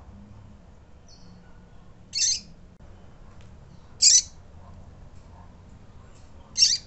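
Female double-collared seedeater (coleiro) calling with short, high-pitched peeps: three loud ones about two seconds apart, and a fainter one about a second in.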